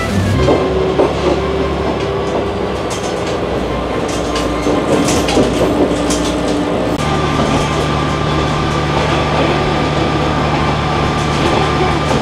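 Interior of a KiHa 120 diesel railcar under way: the diesel engine drones steadily while the wheels click and knock over rail joints. About seven seconds in, the engine's hum settles onto a new steady pitch.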